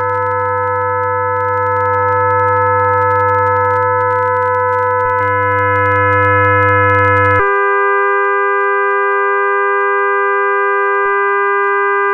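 Experimental drone music: several sustained, steady tones over a low hum. About seven seconds in they switch abruptly to a different, higher cluster of tones and the low hum drops out.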